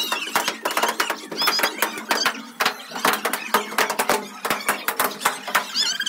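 Balloons bursting in a quick, irregular string of sharp pops, with high excited shrieks from children now and then.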